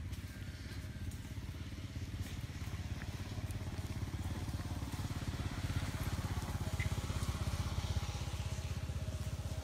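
Small motorcycle engine running, a steady low pulsing drone that grows louder through the middle and peaks near the end.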